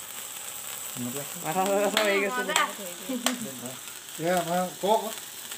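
Cake fountain sparkler candle fizzing with a steady hiss, with voices of people nearby and a couple of sharp clicks.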